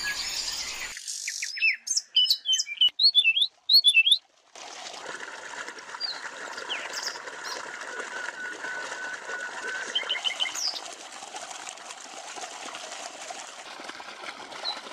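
Birds chirping: a run of quick, sharp chirps from about one to four seconds in, then scattered calls over a steady background hiss.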